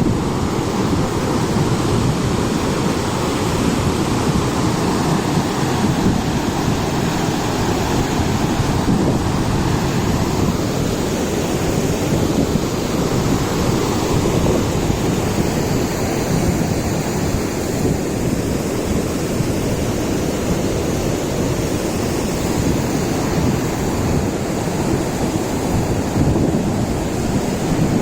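Steady, unbroken rushing roar of falling water from Duduma Waterfall, heaviest in the low end.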